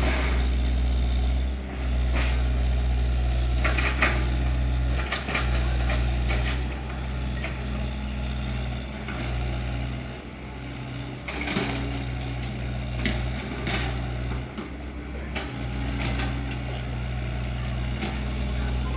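Excavator's diesel engine running steadily, its note dipping a few times, with scattered mechanical knocks and clanks.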